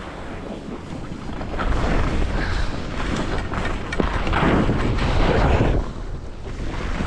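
Wind buffeting the microphone of a skier moving downhill, with skis hissing and scraping over packed snow. It swells louder from about two seconds in as the turns pick up speed.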